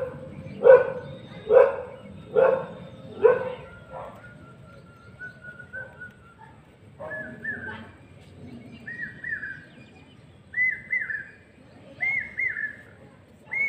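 A dog barking, one bark a little under every second, for the first three and a half seconds. Then a bird calls: first a thin whistle rising slowly, then repeated pairs of short falling notes, a pair about every one and a half seconds.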